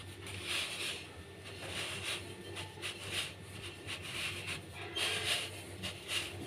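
A hand pressing and smoothing a pizza dough base out across an oiled round metal tray: soft, irregular rubbing and patting sounds, about one or two a second, over a steady low hum.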